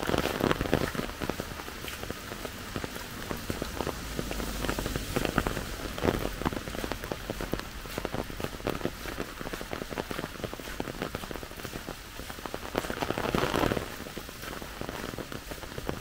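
Steady rainfall with many separate drops striking close by, swelling louder briefly a few times.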